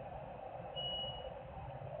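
A heavy vehicle's reversing alarm: one long, high-pitched beep about a second in, part of a slow repeating pattern, over a steady drone of engine and machinery.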